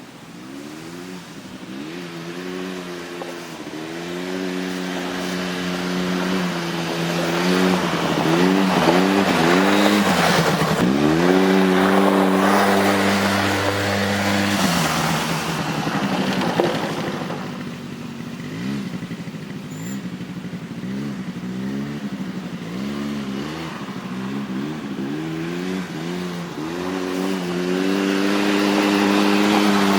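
Polaris Scrambler 90 ATV engine revving up and down as the quad is ridden. The pitch rises and falls again and again with the throttle, holds high for a few seconds in the middle, and the engine is louder in the middle and near the end.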